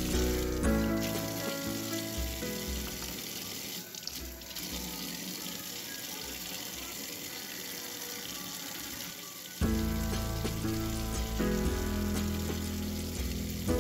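Kitchen tap running in a steady stream into a sink and splashing as small oranges are rinsed by hand. Background music plays along with it, dropping low for several seconds and coming back louder about ten seconds in.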